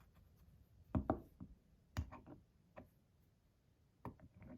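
Light knocks and clicks of small fidget-toy parts being handled and set against one another, the clearest about one and two seconds in.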